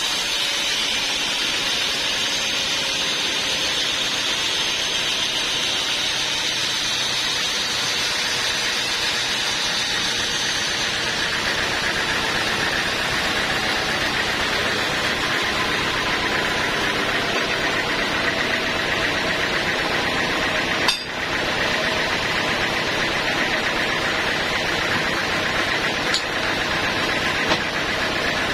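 Sawmill saw running steadily, a continuous mechanical noise. A sharp knock about two-thirds of the way through, and two small clicks near the end.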